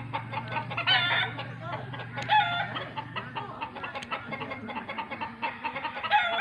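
Chickens clucking, with loud pitched calls about 1 s, 2.5 s and 6 s in, over a steady low hum that fades out about halfway through.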